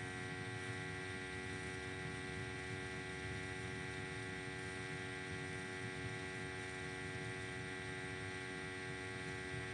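Steady background hum made of several held tones, with no other sound over it.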